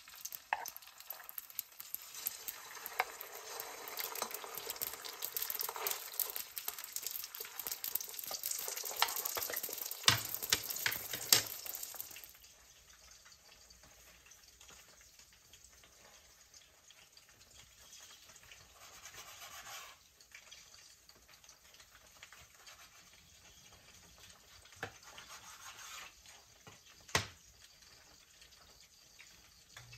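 Food sizzling as it fries in a pan, with frequent small clicks. The frying noise stops suddenly about twelve seconds in, leaving faint kitchen sounds and one sharp knock near the end.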